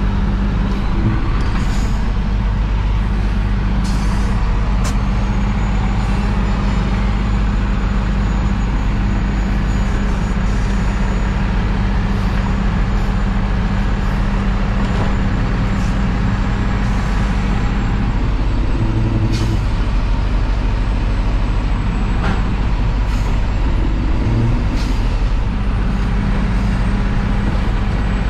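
Side-loader garbage truck's diesel engine running with a steady drone, heard from inside the cab, with a few clanks while the truck works at the carts.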